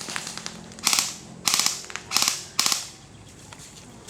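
Airsoft guns firing on full auto in four short bursts between about one and three seconds in, each a rapid string of clicking shots, with fainter fire at the start.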